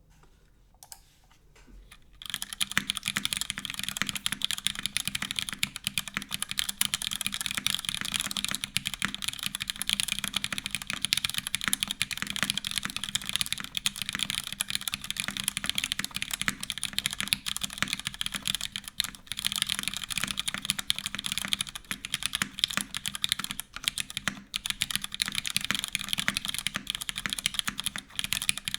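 Continuous fast typing on a custom mechanical keyboard with stock Cherry MX Black (MX2A) linear switches in a full aluminium plate with no foam dampening, under GMK keycaps, giving a dense run of key clacks. The typing starts about two seconds in.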